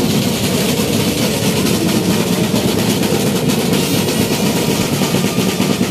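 Marching band snare drums played together in a fast, dense, continuous beat, loud and steady with no break.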